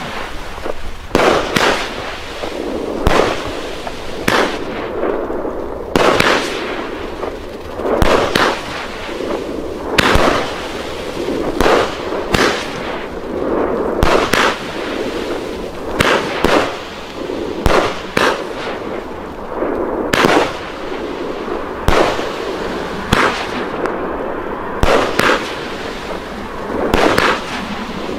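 A 30 mm, 19-shot firework battery firing shot after shot, with a sharp bang about every one to two seconds and a steady hiss between the bangs. Its shots burst into strobing stars and breaks.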